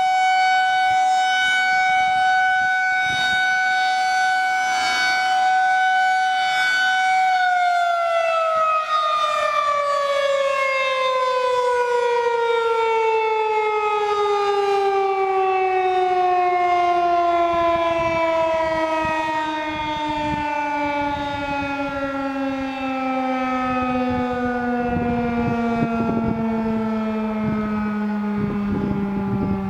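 Federal Signal 2001-SRN electromechanical rotating outdoor warning siren holding a steady high tone for several seconds, then winding down, its pitch falling slowly and smoothly as the rotor coasts down.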